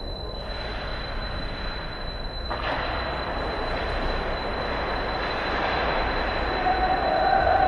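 Ice hockey play on an indoor rink: skate blades scraping the ice over a steady low rumble and a thin constant high whine. The scraping gets suddenly louder about two and a half seconds in, and a held tone comes in near the end.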